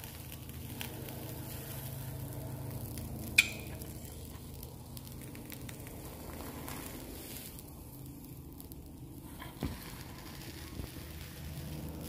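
Molten aluminium pouring from a steel crucible into a steel muffin tin, sizzling and crackling as it hits the pan, with one sharp knock about three seconds in and a smaller one near the end.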